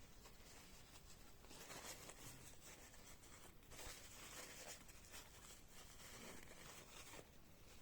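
Near silence with faint rustling and scraping of hands handling something, in two stretches of a couple of seconds each.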